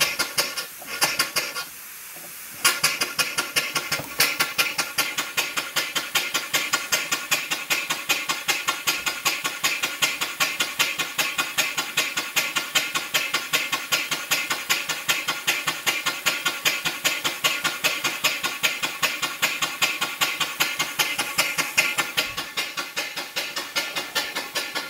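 Small vertical steam engine running on compressed air: a fast, even beat of exhaust puffs over a hiss. It drops away briefly near the start and picks up again about two and a half seconds in.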